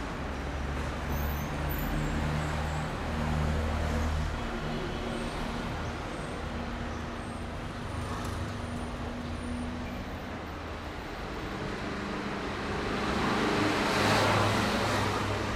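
Road traffic: a motor vehicle's engine running with a steady low hum, and a passing vehicle whose road noise swells and fades near the end.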